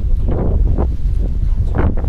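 Strong wind buffeting the microphone: a heavy low rumble with irregular gusty flare-ups.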